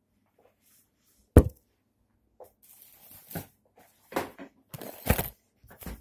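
Handling noise of a phone being picked up and moved about: a single sharp knock about a second and a half in, then rubbing and a few dull bumps.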